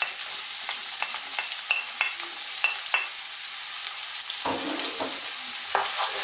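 Chopped onion sizzling steadily in hot sunflower oil in a frying pan, with a wooden spoon clicking, scraping and now and then knocking as the onion is stirred.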